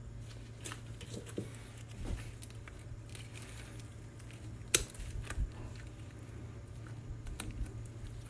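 Oyster shells clicking and scraping as small oysters are pried and snapped open with pliers, with one sharp crack about halfway through. A steady low hum runs underneath.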